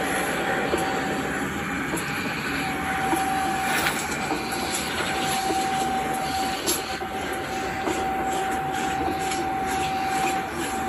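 A Samsung front-load washer and heat pump electric dryer running together at full operation: a steady mechanical whir with a constant high tone and occasional light ticks.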